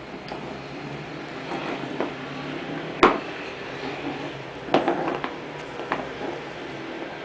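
Lhasa Apso puppy playing with a canvas sneaker on a wooden floor: sharp knocks of the shoe against the floorboards, one about three seconds in, a quick cluster near five seconds and another near six, over a steady low hum.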